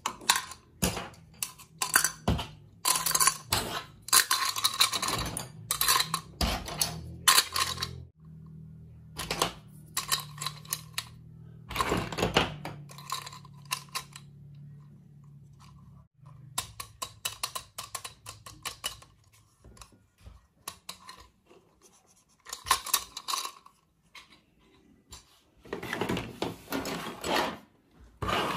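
Small plastic toy-kitchen pieces clicking and clattering as they are handled and dropped one after another into a small cup, in quick bursts with short pauses. Near the end comes a longer, denser rattle as the pieces spill back onto the table.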